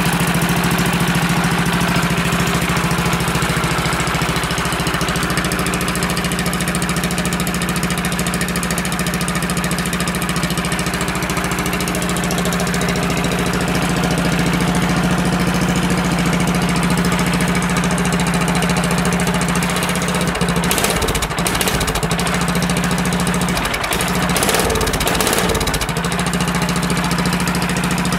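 Tecumseh OHV 17.5 HP big-bore single-cylinder engine idling steadily through its custom exhaust with a deep cackle, still cold shortly after a cold start. A few brief knocks come about three-quarters of the way in.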